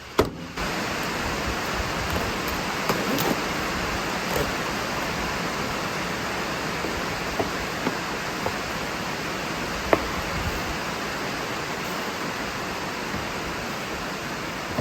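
Heavy rain falling, a steady hiss that starts abruptly about half a second in, with a few faint knocks here and there.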